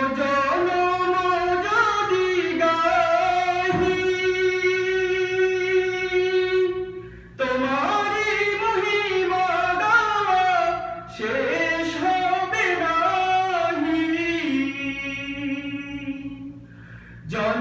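A man singing a Bengali devotional song unaccompanied, in long held, wavering notes, pausing briefly about seven and eleven seconds in and again near the end.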